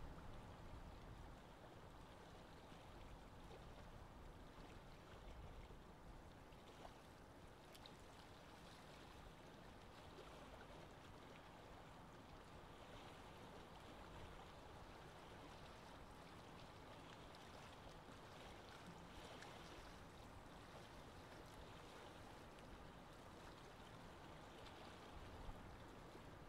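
Faint, steady wash of open water with small waves.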